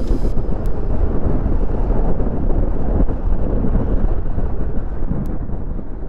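Strong wind gusts buffeting the microphone: a loud, continuous low rumble, with gusts of about 22 mph.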